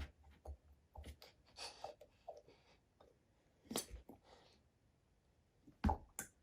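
Faint scattered clicks and brief scrapes of small objects being handled, with two sharper knocks about four and six seconds in.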